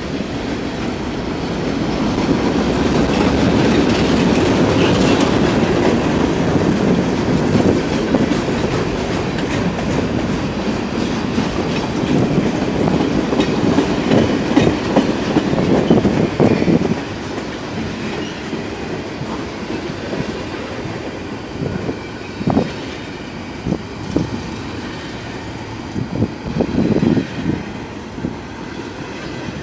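Freight cars of a long mixed-freight train rolling past, their wheels clacking over rail joints. The rumble is loud for the first half, then eases to a quieter run with scattered sharp clanks.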